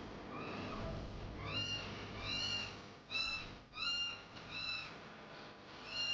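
Baby kitten mewing: a run of short, high-pitched cries, about one every second.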